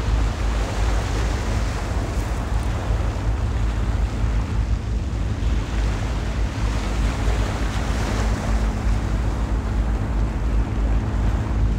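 Wind buffeting the microphone and small waves washing onto a pebble beach, with the steady low drone of a boat engine underneath that grows clearer about a third of the way in.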